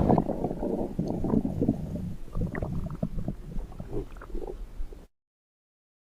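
Stomach rumbling and gurgling in a dense, crackly run that is loudest at the start and tapers off, then cuts off abruptly about five seconds in.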